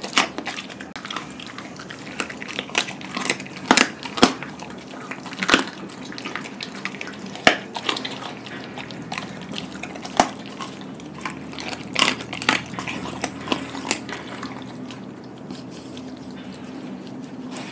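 Doberman chewing raw chicken bones close to the microphone: wet smacking and licking with sharp crunches about once a second, thinning out near the end.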